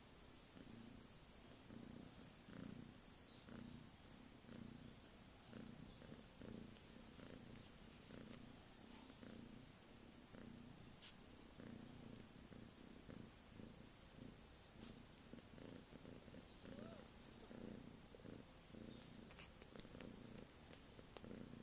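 Domestic cat purring in a steady, rhythmic pulse, faint and low, with a few small clicks near the end.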